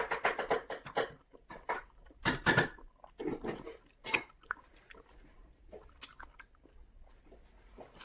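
A person chewing and biting balot (boiled fertilised duck egg) close to the microphone: irregular smacking and chewing sounds, coming thick and fast for about the first four seconds, then only now and then.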